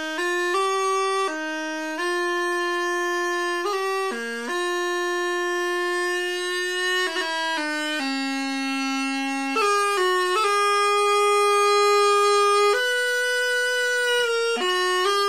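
Bagpipe practice chanter playing a slow Celtic tune: held notes joined by quick grace notes at each change, with no drones.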